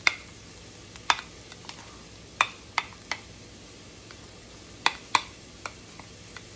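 Metal spoon clinking and scraping against a ceramic bowl while mashing and stirring a stiff cheese and mustard spread: about nine sharp, irregularly spaced clinks over a faint steady hiss.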